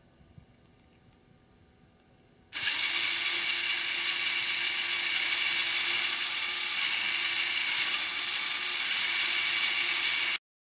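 LEGO Mindstorms NXT servo motors and their plastic gear train running at speed, a steady high whirring gear noise. It starts suddenly a couple of seconds in and cuts off abruptly near the end.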